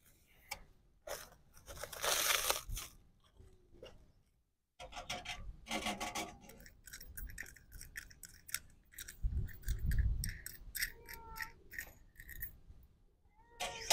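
Irregular scraping and clicking, as of things being handled, coming in several short runs, with a low rumble about nine to ten seconds in.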